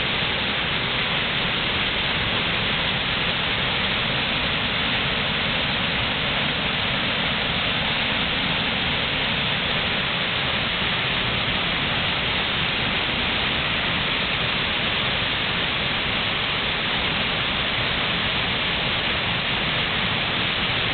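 Minneopa Falls waterfall: a steady, even rush of falling water.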